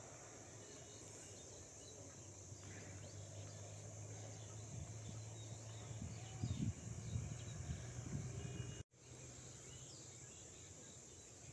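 Faint rural ambience: a steady high drone of crickets and other insects, with a few short bird chirps. Low rumbling bumps come in around the middle and are the loudest sounds, and the sound cuts out for an instant about three-quarters of the way through.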